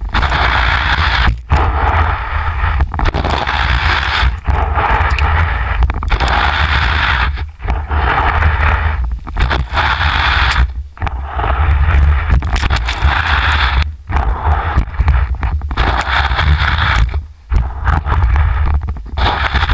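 Telemark skis and a lurk pole scraping and hissing through snow as the skier turns down a steep slope, in long bursts broken by short gaps, over a steady low rumble of wind on the microphone.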